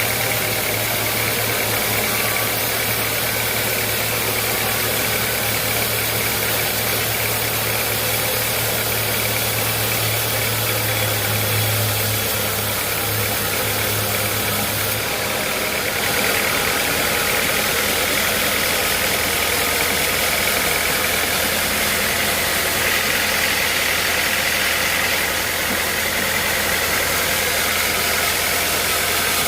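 Sawmill machinery running steadily: a low motor hum under a dense high hiss. About halfway through, the hum drops slightly in pitch.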